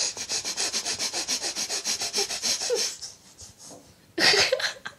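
Rapid snuffling puffs of breath through the nose, about nine a second for some three seconds: a playful imitation of a hedgehog's snuffle. A short, louder vocal burst follows about four seconds in.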